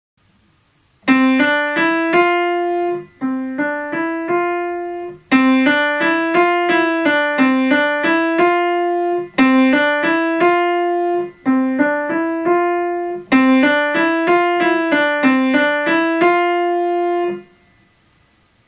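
Piano playing a simple beginner's melody one note at a time in the middle of the keyboard, in four short phrases that each end on a held note.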